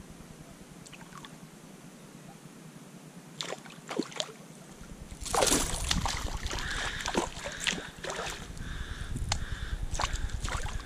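A snook strikes a fishing lure with a loud splash about five seconds in, after two short clicks; the hooked fish then keeps splashing and thrashing at the water's surface as it is fought toward the kayak.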